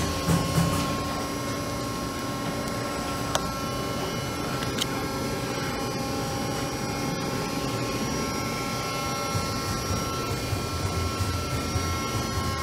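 Steady hum of the Accurpress press brake's hydraulic pump and 10-HP motor running with the ram at rest, quiet, with a few fixed high tones over it. Two light clicks come about three and five seconds in.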